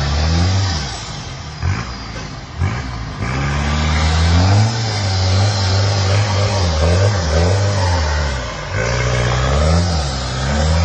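Off-road 4x4's engine revving up and down again and again, its pitch rising and falling in surges, with a brief easing off about two seconds in before it picks up again.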